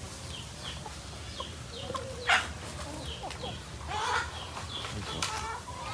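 A flock of free-range layer hens clucking and calling, with short high chirps scattered through and one louder, harsher call about two seconds in.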